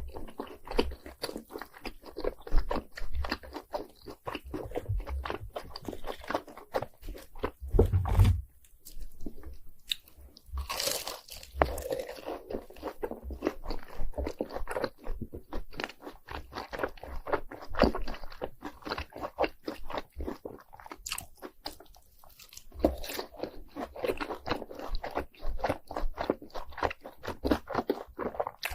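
Crunchy bites and chewing of fried cheese balls coated in crushed Hot Cheetos, dense crackling chews with a louder bite about eight seconds in and a short pause a little before the end.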